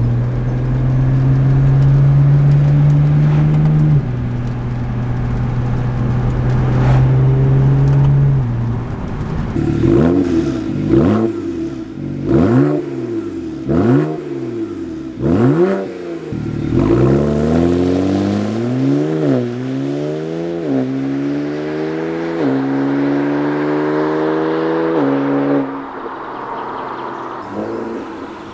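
BMW 335is twin-turbo N54 inline-six on its stock exhaust. It holds a steady note at first, then gives about six quick throttle blips, then accelerates with the pitch climbing in steps as the dual-clutch gearbox changes up, and fades near the end.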